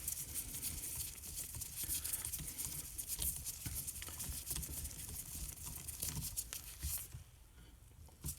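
Close handling noise: a dense run of small clicks, taps and rustles lasting about seven seconds, then dying down.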